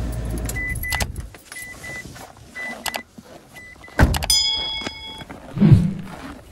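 Mitsubishi Pajero Mini's 0.7-litre engine idling and then switched off about a second in; it is cut short so the snow on the engine won't melt and refreeze. Short high electronic beeps sound on and off, then the car door slams shut about four seconds in, followed by a brief ringing tone.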